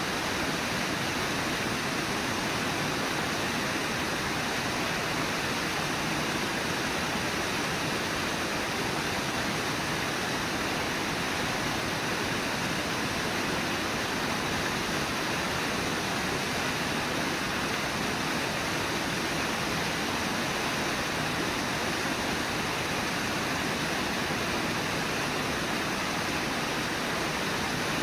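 Steady rush of water pouring over a low river waterfall, Brooks Falls, unchanging throughout with no separate splashes standing out.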